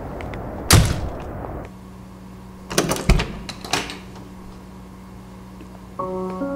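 A loud thump about a second in, then a few sharp knocks and clicks about three seconds in. Soft piano music starts near the end.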